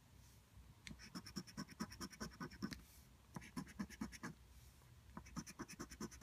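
Scratch-off lottery ticket being scratched with quick back-and-forth strokes, about six or seven a second, in three short runs separated by brief pauses.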